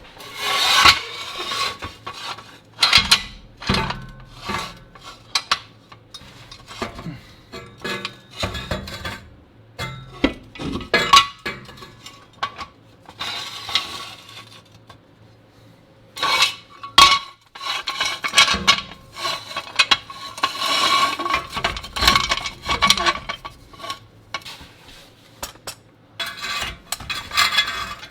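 Irregular metal clanking, clinking and scraping from tools working on a corroded exhaust pipe, in bursts with short pauses between.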